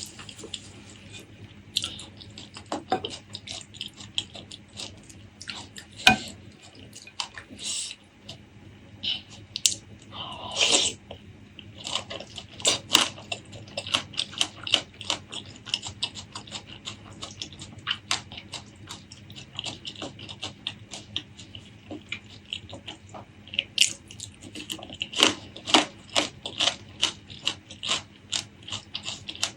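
Close-miked eating sounds: wet chewing and mouth clicks, with many short, sharp sounds coming at irregular intervals.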